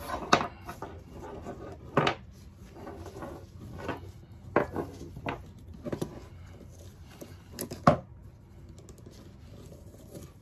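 Metal ratchet-strap buckle knocking and clinking irregularly as the jammed strap is twisted and worked loose by hand, with about seven sharp knocks over a low rustle of handling.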